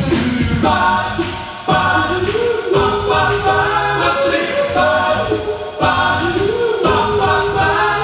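Male a cappella vocal group singing doo-wop-style close harmony into handheld microphones, with no instruments: held chords that change every second or two over a low bass voice, with a voice sliding up into a new note a few times.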